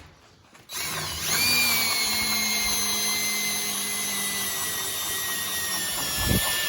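Cordless drill running under load, boring through a fiberglass bumper; it starts about a second in and its whine slowly sags in pitch as the nearly dead battery runs down, then stops near the end.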